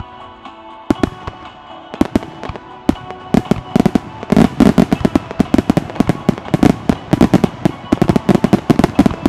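Starmine fireworks barrage: shells launching and bursting in rapid fire, the bangs coming thicker and louder from about two seconds in until they overlap several a second. Loudspeaker music fades out under the first bangs.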